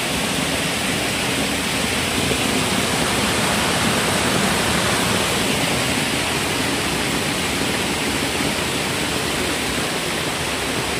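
Shallow rocky stream rushing over stones and small rapids, a steady loud rush of water.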